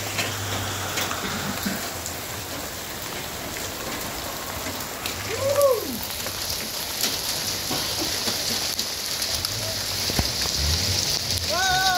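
Steady rain falling and pattering on the ground and surfaces. A short call that rises and falls cuts through about halfway, and another comes near the end.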